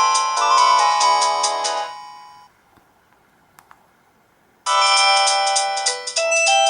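Polyphonic mobile-phone ringtones (Samsung SCH-A915 tones) playing through a Philips Xenium E168's loudspeaker. One melody ends and fades out about two seconds in. After about two seconds of quiet with a faint click, a different ringtone melody starts abruptly.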